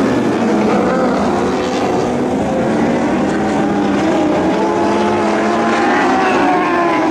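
Engines of Lightning Sprint cars racing on a dirt oval at high revs, several engine notes overlapping and rising and falling in pitch as the cars throttle through the turns.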